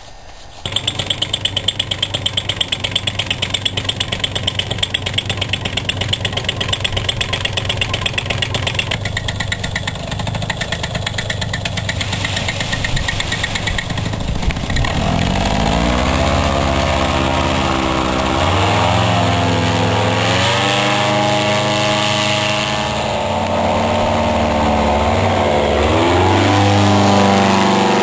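Paramotor engine running: even and steady for about the first half, then its pitch rises and swings up and down several times as the throttle is opened and eased during launch and flight.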